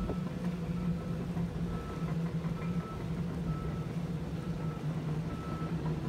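Steady low hum of an idling car engine under a rush of strong wind.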